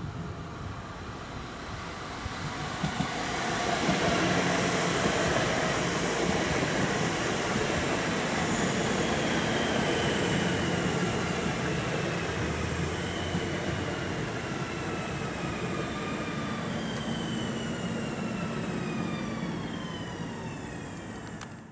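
Two coupled DB Class 1440 (Alstom Coradia Continental) electric multiple units passing on the rails. The rumble swells over the first few seconds and then slowly fades, while several electric whines fall steadily in pitch as the train goes by.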